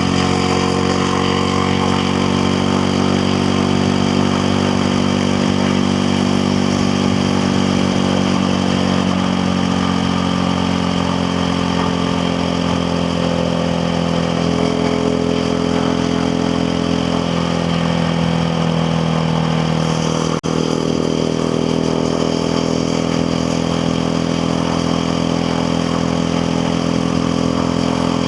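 KTM Duke 690R's single-cylinder engine running steadily, its pitch easing down a little partway through and then holding. A brief break in the sound comes about twenty seconds in.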